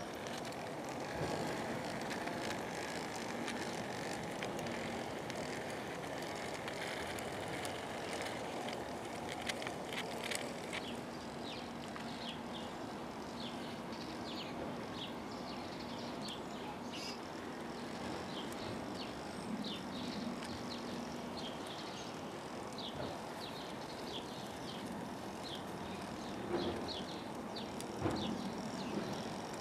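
Model garden-railway diesel-outline locomotive running with its wagons along the track, its small motor and gearing giving a steady low hum, with many light ticks and clicks from wheels and track and two sharper knocks near the end.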